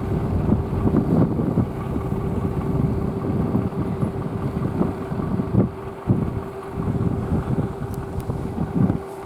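Diesel railcar running with a steady engine drone, with wind buffeting the microphone in irregular gusts.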